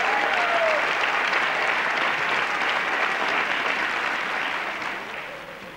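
Studio audience applauding, the clapping dying away near the end.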